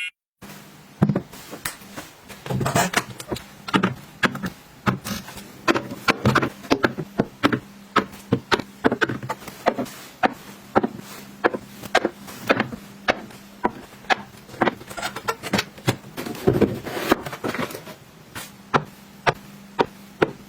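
Items being handled and set down one after another during restocking: an irregular string of sharp clicks and taps, a few a second, over a faint steady low hum.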